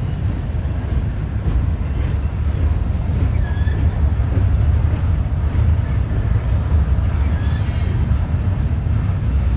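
Double-stack intermodal freight train rolling past: a steady low rumble of the well cars' wheels on the rails, with a few brief high squeaks over it.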